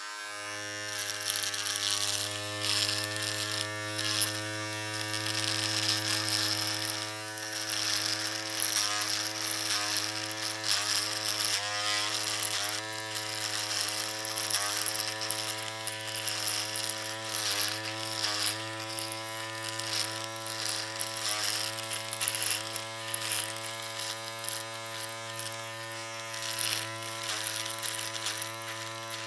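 Electric shaver running with a steady buzz. From about eight seconds in, its pitch dips briefly every second or so.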